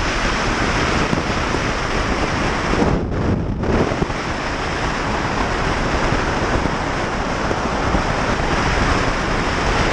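Steady loud wind rush over a helmet-mounted camera's microphone on a motorcycle at road speed, with a brief dulling of the hiss about three seconds in.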